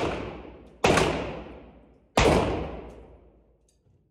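Gunshots echoing in an indoor shooting range: the tail of one shot is dying away at the start, then two more sharp reports come about a second in and just after two seconds, each ringing out in a long reverberating decay.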